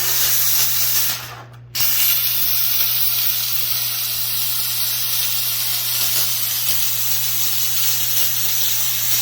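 McCulloch Deluxe canister steam cleaner jetting steam from its nozzle with a loud, steady hiss. The hiss cuts out for about half a second a little over a second in, then comes straight back. A steady low hum runs underneath.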